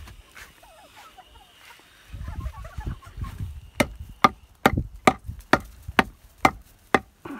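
Domestic chickens clucking softly, then a run of about eight sharp knocks, evenly spaced about two a second, in the second half.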